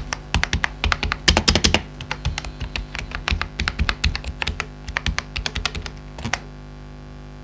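Typing on a WarWolf GhostWolf V7 mechanical keyboard with Warwolf switches: a fast, irregular run of key clicks that stops about a second before the end.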